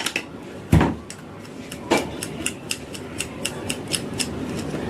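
Light, irregular clicks and clinks of small tools being handled at a workbench, several a second, with a louder knock about a second in and another about two seconds in.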